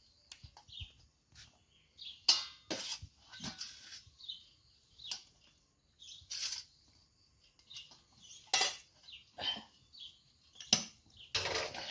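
Steel ladle scraping and clinking against a steel bowl in short, irregular strokes, with water sloshing, as boiled flat bean pods are scooped out of their cooking water.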